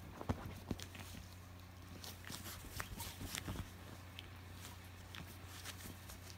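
Small dog digging and nosing into a bed comforter: irregular soft scratches, rustles and clicks of paws and snout on the fabric, busiest near the start and again around the middle.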